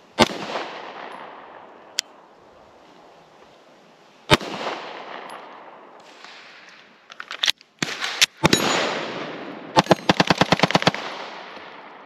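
Sig Sauer P365XL 9mm pistol firing: single shots at about a second in and at about four seconds, a quick cluster of shots from about seven seconds, then a fast string of about a dozen shots near ten seconds. Each report is followed by an echoing tail.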